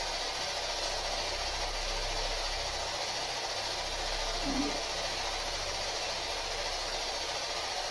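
Steady hiss of background noise with no words, broken once about halfway through by a brief low blip.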